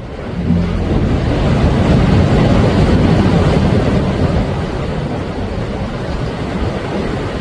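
Sea waves washing onto the shore: a surge of surf noise that builds over the first couple of seconds and then slowly eases off.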